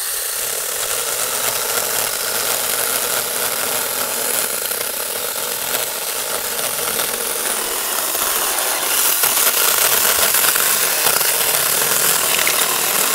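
Tomyvic 6-inch battery-powered mini chainsaw running steadily as its chain cuts through a log, a little louder in the last few seconds of the cut.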